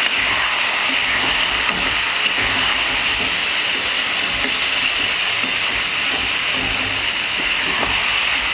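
Crab pieces frying in hot mustard oil and spice masala in a steel kadai, sizzling with a steady hiss while a metal spatula stirs them.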